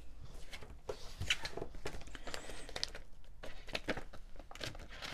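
Clear plastic die packaging rustling and crinkling as it is handled, with scattered light clicks and taps from the thin metal cutting dies inside.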